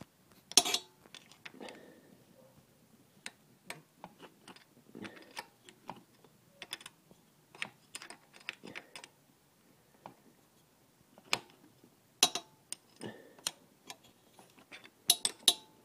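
Irregular metallic clicks and clinks of a spanner working a bolt on an engine's intake manifold, with a few sharper knocks.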